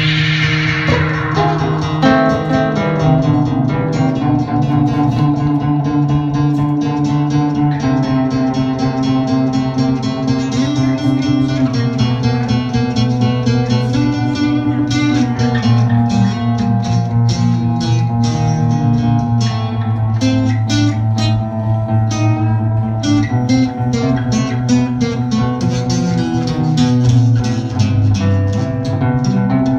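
A live acoustic band playing an instrumental passage with plucked guitars, held notes and changing chords. A bright stroke rings out and dies away at the very start.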